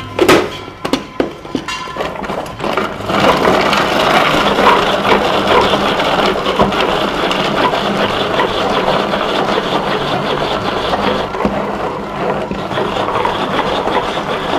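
Hand-cranked manual food chopper chopping onion. A few knocks in the first two seconds, then from about three seconds in a steady, dense rattle of the blades as the crank is turned.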